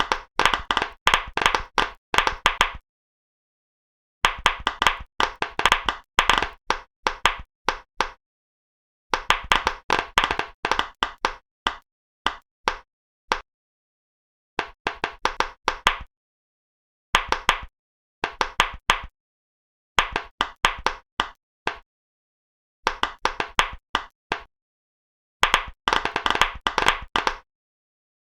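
Silicone pop-it fidget bubbles being pressed, a quick run of sharp pops in each burst, about ten bursts separated by short silences.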